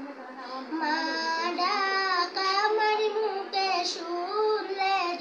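A young girl singing a Bengali Islamic song alone, her voice growing louder about a second in.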